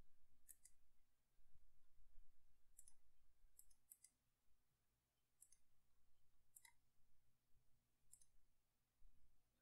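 Faint computer mouse button clicks, a few scattered over several seconds, some in quick pairs, over a low hum.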